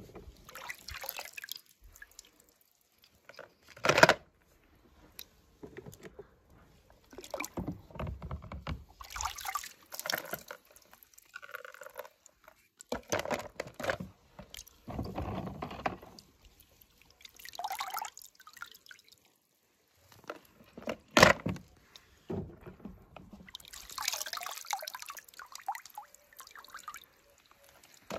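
Water splashing and sloshing in a plastic tub as a hand rummages through it, in scattered bursts, with two sharp knocks, the loudest sounds, about four seconds in and near twenty-one seconds.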